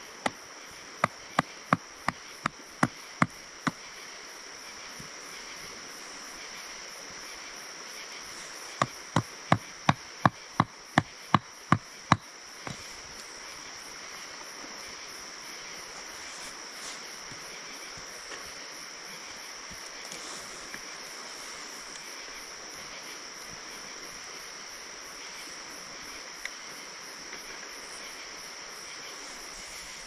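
Sharp wooden knocks of a knife being batoned through firewood to split kindling, in two runs of about ten strikes each, roughly three a second, both within the first dozen seconds. Crickets trill steadily throughout.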